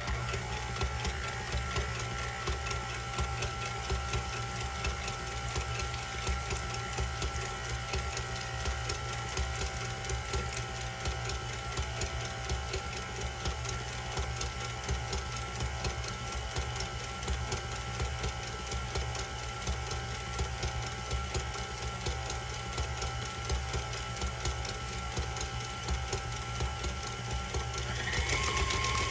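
Stand mixer running at low speed with its whisk beating warm egg whites and sugar for a Swiss meringue: a steady motor whine. Near the end the pitch rises and it gets louder as the mixer is turned up to a higher speed.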